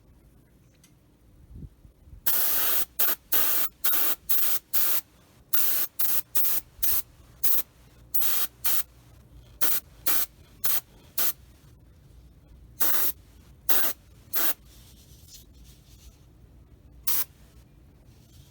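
Airbrush spraying primer in about two dozen short hissing bursts, most in quick succession, then a pause and one last burst near the end.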